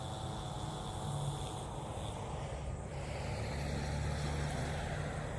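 Steady low rumble of distant road traffic, swelling slightly about four seconds in.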